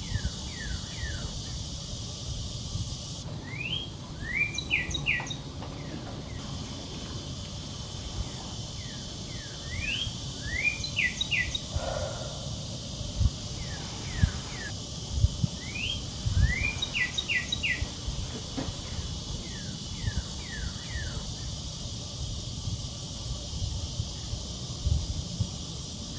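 Forest birdsong ambience: a songbird repeats a short phrase of quick rising and falling chirps about every six seconds, over a steady high insect-like hiss and a low rumble.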